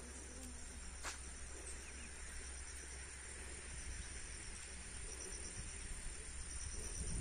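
Faint, steady, high-pitched chirring of insects such as crickets, with a low hum beneath and a single click about a second in.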